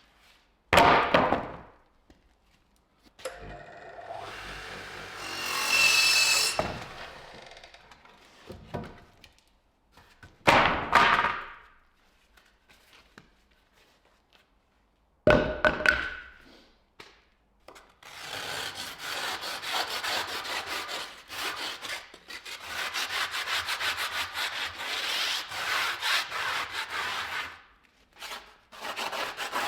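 Woodworking in a workshop: a few separate knocks of wood on wood, a few seconds of scraping with a faint whine, then about ten seconds of rapid, even back-and-forth strokes of a hand tool working wood, like sawing or rasping.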